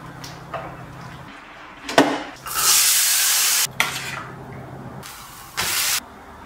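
Kitchen food-preparation sounds: a sharp clack about two seconds in, then a loud hiss for about a second, a metal spoon clinking against a steel bowl, and another short hiss near the end.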